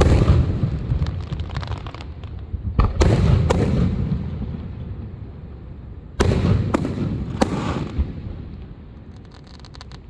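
Aerial fireworks bursting: about six loud booms in two clusters, each followed by a rolling rumble. A run of fast crackling comes near the end.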